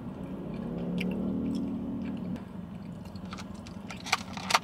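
A woman chewing a mouthful of poke with her mouth closed, giving a long hummed "mmm" of about two seconds. Near the end come a few sharp clicks of the fork against the plastic takeout container.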